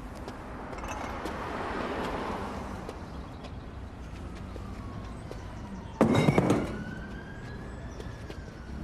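A siren wailing faintly, its pitch slowly falling and then slowly rising, with a loud thud about six seconds in.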